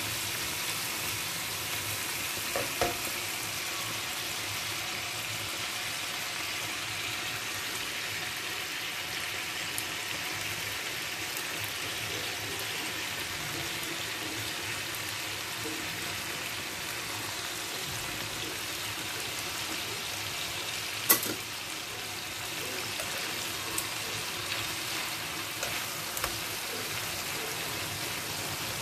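Chicken thighs sizzling in their sauce in a stone-coated frying pan, a steady hiss. A few sharp clicks stand out, the loudest just past the middle.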